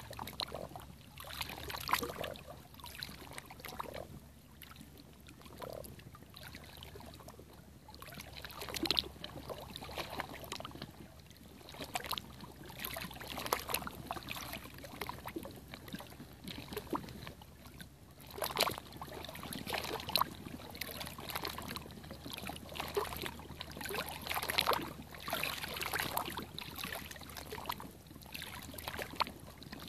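Small wavelets of calm sea water lapping and splashing against shoreline rocks, in irregular small splashes every second or so.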